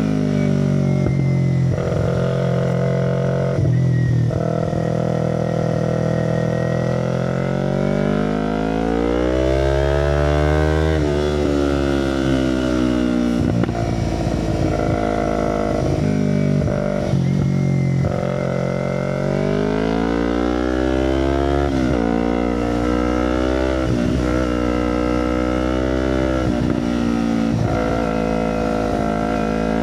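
Kawasaki Ninja 250R's parallel-twin engine running through an Akrapovic carbon exhaust. Its pitch holds steady at first, then climbs and falls back in a few slow sweeps, rising about a third of the way in and again past the middle.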